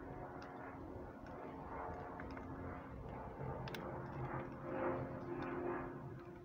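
Light, irregular metallic clicks of a 19 mm wrench working on a car's coolant temperature sensor, with hands rustling and scraping among the engine-bay parts, loudest about five seconds in, over a faint steady hum.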